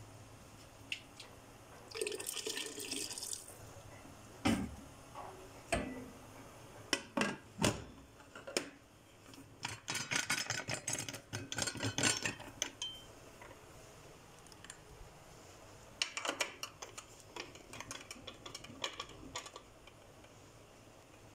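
An aluminium pressure cooker lid being set on the pot and twisted shut: scattered metal knocks and clicks, with several stretches of rattling and clattering.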